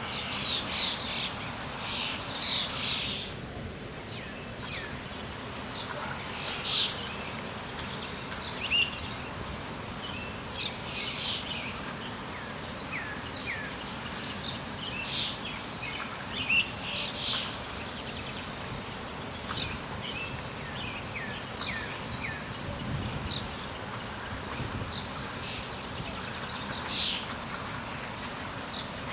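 Small birds chirping, with short high calls scattered throughout, over a steady background hiss.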